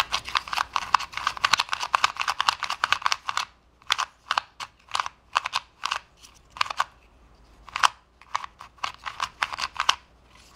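Plastic layers of a Lefun 2x2 speed cube clicking as it is turned quickly by hand. A fast run of turns fills the first three seconds or so, then shorter bursts of a few turns follow with brief pauses between.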